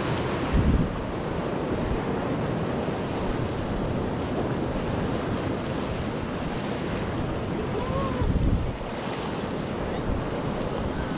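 Sea surf breaking and washing over shore rocks, with wind rumbling on the microphone in two stronger gusts, about a second in and again about eight seconds in.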